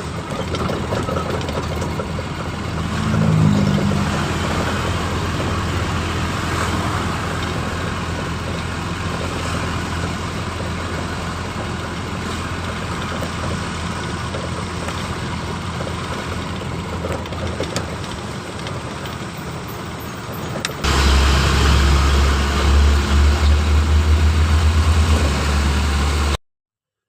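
Truck engine running steadily, with a brief swell in pitch and level a few seconds in. About 21 seconds in it cuts abruptly to a louder, deeper engine sound that pulses rhythmically, then stops suddenly near the end.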